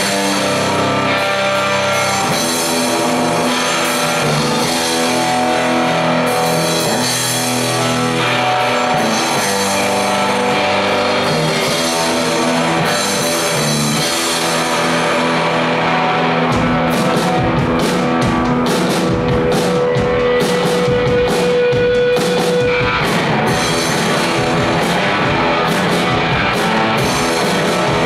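Live rock band playing loud: electric guitars ring out held chords, and a little over halfway in the drum kit comes in with hits and cymbals as the full band plays on.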